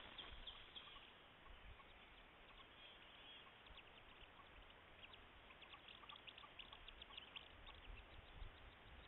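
Wood duck ducklings peeping faintly: many short, high peeps, thickest in the second half, over a steady hiss from a trail camera's microphone.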